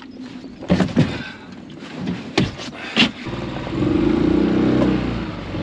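A few sharp knocks, then about three seconds in a Mariner outboard motor on an inflatable boat starts up and runs steadily, louder for a second or so before settling.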